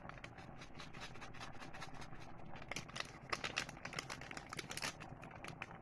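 Pot of pork sinigang on the stove as bok choy is piled in: a run of small irregular crackles and pops over a low steady hum, busiest around the middle.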